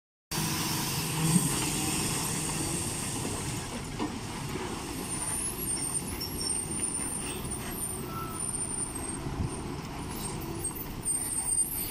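Heavy trucks and a bus running at low speed as they take a sharp hairpin bend, a steady mix of diesel engine rumble and road noise.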